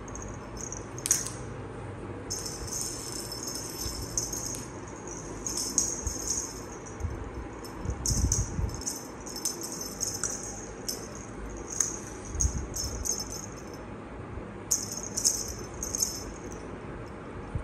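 Cat wand toy rattling and jingling in quick, uneven bursts as it is shaken and batted, with a couple of dull low thumps partway through.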